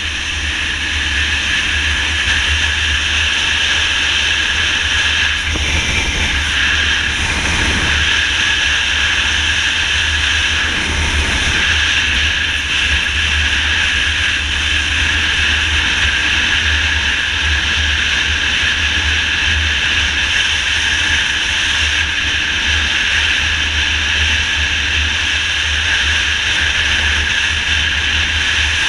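Steady rush of wind and road noise from a motorcycle cruising at highway speed, with a constant low rumble underneath.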